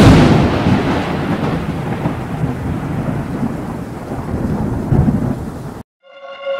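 Thunder with rain: a sudden loud crack, then a rolling rumble over steady rain, swelling again about five seconds in before cutting off abruptly. A sustained, slightly falling tone with overtones starts just after.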